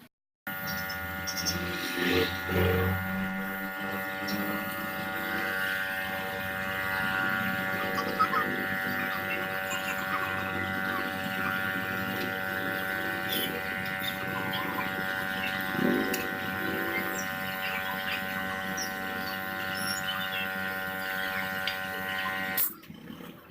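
A steady hum made of several fixed tones, starting abruptly and cutting off suddenly near the end, with a few faint knocks and murmurs over it.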